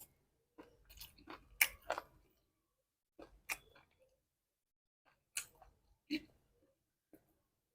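A person chewing food close to the microphone. A quick run of short mouth clicks fills the first two seconds, then a few single clicks follow with pauses between.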